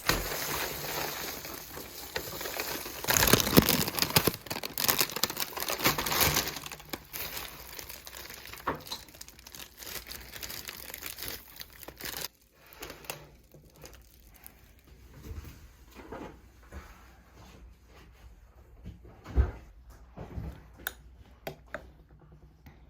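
Gift wrapping crinkling and tearing as a package is unwrapped, busiest and loudest in the first several seconds, then dying down to scattered rustles and light clicks.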